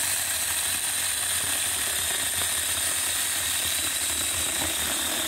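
Saker 6-inch battery-powered mini chainsaw running steadily, its chain cutting through a tree trunk, with a steady high whine over the chain's rattle.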